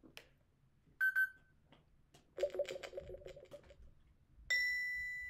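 Electronic sounds from a toy lie detector game reading an answer: a short double beep, then a buzzing warble lasting over a second, then a long steady high beep that slowly fades.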